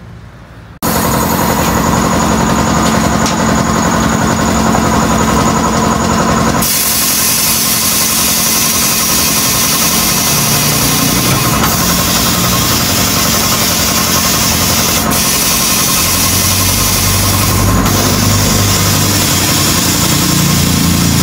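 A motor-driven machine running loudly and steadily, with a constant low hum under a hiss. It cuts in abruptly about a second in, and its tone shifts at about six and a half seconds.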